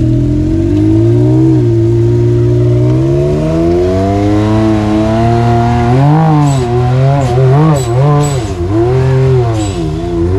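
Side-by-side UTV engine under throttle, its pitch climbing steadily for the first several seconds, then revving up and down in quick blips through the second half. Short hissing bursts come in among the revs.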